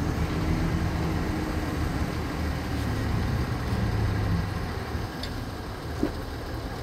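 Heavy truck-mounted crane's diesel engine running steadily as it works a lift, a low, even engine hum.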